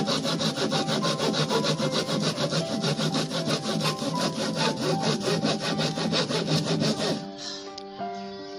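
Hand saw cutting through a thin plywood sheet in quick, even strokes, about five a second, stopping about seven seconds in.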